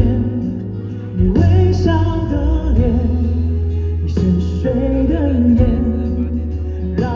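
Live Mandarin pop ballad: a singer's held, sliding phrases over band accompaniment with a steady bass line, amplified through a concert PA.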